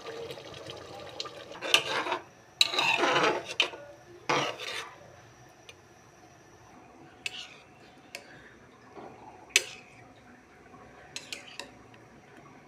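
A metal spoon scraping and stirring in a cooking pot for a few seconds, then several sharp clinks of utensils against the pot, two or three close together near the end.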